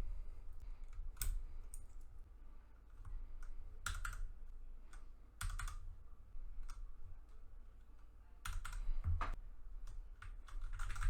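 Keycaps being pulled off and pressed onto the Cherry MX Speed Silver switches of a mechanical keyboard: irregular sharp plastic clicks and snaps, some in quick pairs, with pauses between.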